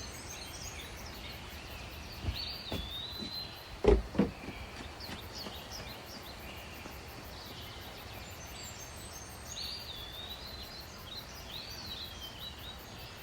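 Small birds chirping in short whistled calls, a few about three seconds in and a longer run near the end, over steady outdoor background noise. A couple of dull knocks about four seconds in.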